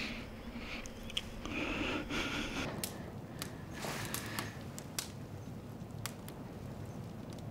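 Soft splashing of water in a washbasin, in two short stretches, with scattered small clicks and knocks.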